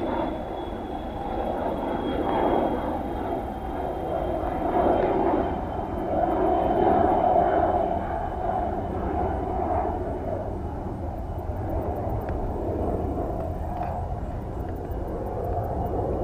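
A distant engine drone, steady and rumbling, swelling in the middle and easing off toward the end.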